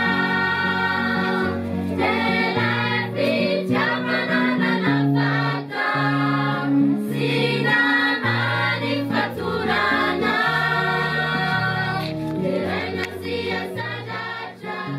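Background music: a choir singing held notes over a moving bass line.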